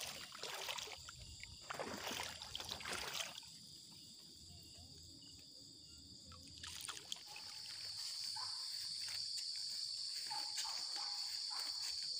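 Faint splashing and sloshing in shallow water during the first few seconds, then a steady high-pitched chirring of night insects that grows a little louder.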